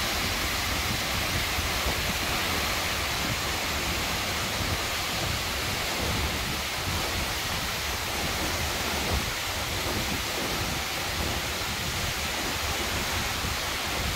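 A tall waterfall plunging down a rock face onto boulders and a pool: a steady, even rush of falling water with no change throughout.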